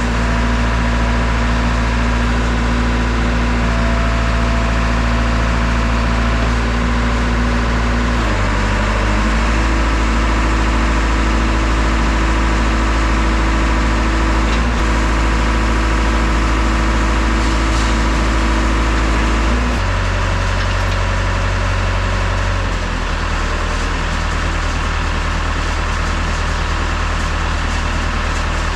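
JCB backhoe loader's diesel engine running steadily. Its note changes in steps about eight and twenty seconds in, and it gets a little quieter about twenty-three seconds in.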